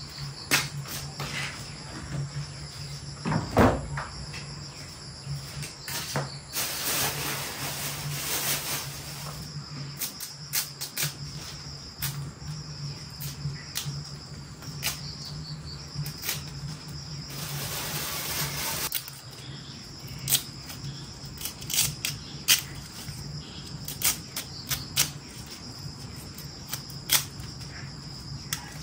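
Insects chirring steadily over a low steady hum, with scattered knocks and clicks of handling and two stretches of rustling noise, about six to nine seconds in and again around seventeen to nineteen seconds.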